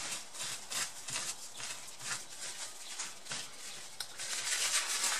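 Tissue rubbing and rustling as it wipes old silicone thermal paste off a laptop motherboard's chip. It makes a run of short, soft strokes that grow louder near the end.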